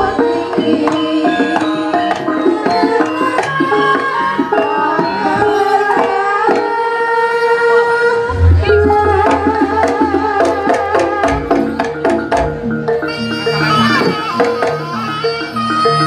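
Live Javanese jaranan ensemble music: hand drums play a dense rhythm under pitched melody instruments. Deep low drum strokes come in about halfway through.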